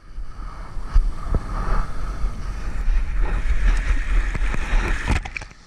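Rushing, churning ocean water and wind buffeting a GoPro held in the mouth of a boogie boarder riding a breaking wave, with a heavy low rumble and a few sharp knocks or splashes.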